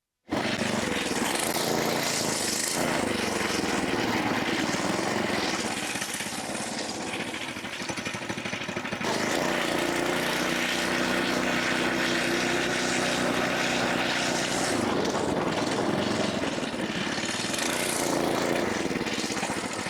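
Small engine of a vehicle running steadily under heavy rushing noise, with a steady engine hum coming through clearly for a few seconds in the middle. It starts abruptly and cuts off abruptly.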